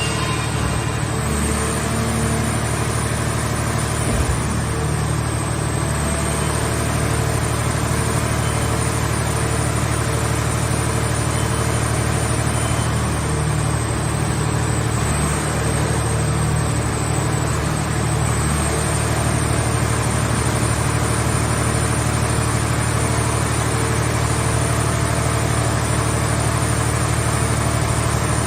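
Scrap car baler's power unit running steadily: a constant low engine-like hum with a thin high whine that wavers slightly in pitch, and a single small knock about four seconds in.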